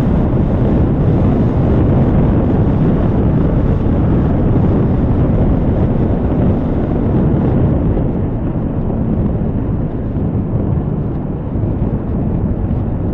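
Motor scooter riding at speed: heavy wind buffeting on the microphone over the engine noise, easing slightly about eight seconds in.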